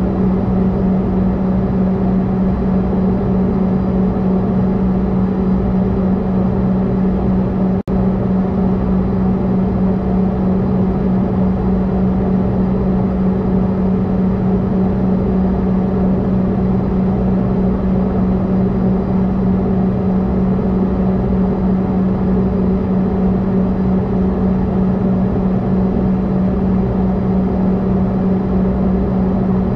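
Steady cabin drone of a CRJ-200 idling on the ground, heard from inside the cabin: a constant low hum with fainter steady tones and air noise above it. The sound drops out for an instant about eight seconds in.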